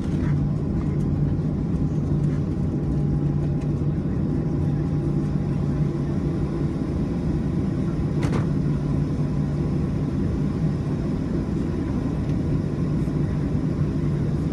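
Steady low rumble of a Boeing 737 cabin on the ground before takeoff, with a faint steady whine over it and a single sharp click about eight seconds in.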